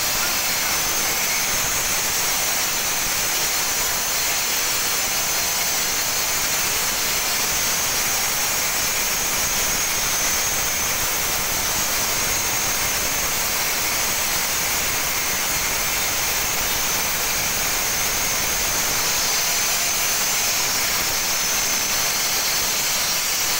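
Stone-cutting machine's saw blade cutting through granite: a steady, high-pitched grinding noise that holds without a break.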